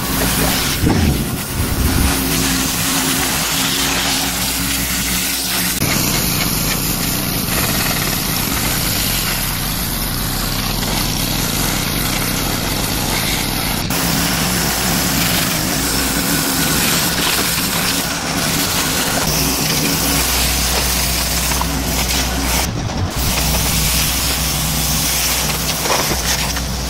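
Gas-engine pressure washer running steadily while its wand blasts water against a truck's hood and camper shell. The sound shifts abruptly a couple of times.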